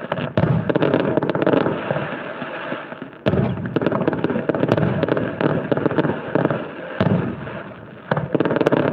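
Fireworks display: a continuous barrage of aerial shell bursts and crackling, with a sudden louder burst about three seconds in.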